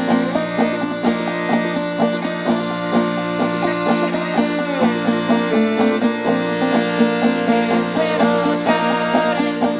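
Old-time music played on clawhammer banjo, with a steady picked rhythm and other strings in the tune.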